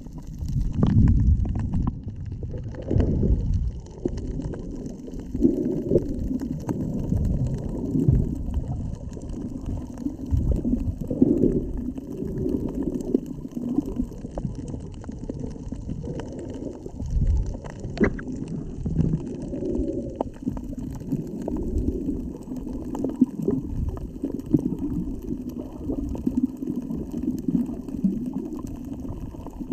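Muffled water sloshing and gurgling, with uneven low rumbling thumps throughout and the strongest surges in the first few seconds.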